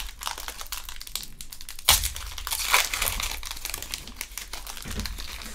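Foil wrapper of a Panini Prizm Draft Picks basketball card pack being torn open and crinkled by hand, with a sudden loud crackle about two seconds in.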